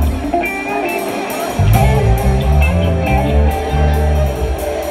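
Live rock band playing: strummed acoustic and electric guitars over a changing bass line and drums. The low end drops out briefly about a second in, and the full band comes back in at once.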